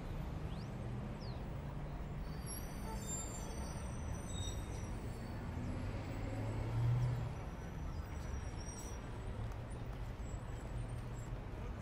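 A steady low rumble that swells briefly about seven seconds in, with a few faint high squeaks or chirps a few seconds in.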